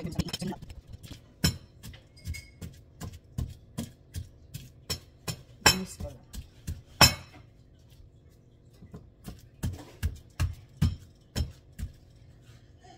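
Pestle pounding bananas in a black mortar, a knock at each stroke, about two strokes a second, pausing for a moment past the middle.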